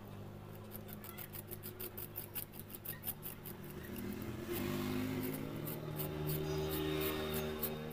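Knife slicing through a fresh bamboo shoot held in the hand, a run of crisp little cuts several times a second. A low droning hum sits underneath and grows louder about halfway through.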